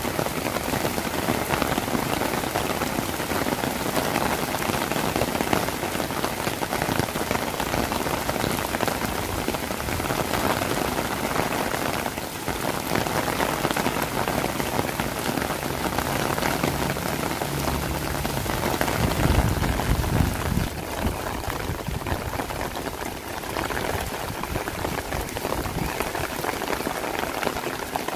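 Heavy rain falling steadily, a dense hiss of drops striking surfaces. A low rumble swells underneath from about sixteen seconds in and is loudest around twenty seconds.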